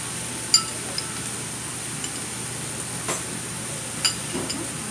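Steaks sizzling steadily on a hot flat iron griddle, with three sharp clinks of metal kitchen utensils.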